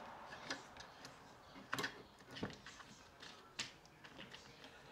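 A few faint, scattered clicks and light taps of a mini cordless chainsaw's plastic side cover and thumb bolt being unscrewed and handled by hand.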